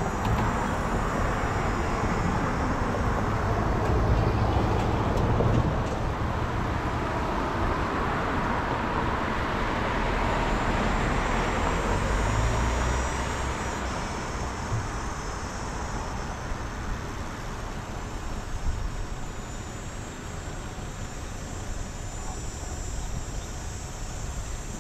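Road traffic: a steady rush of passing cars, louder in the first half and easing off after about thirteen seconds.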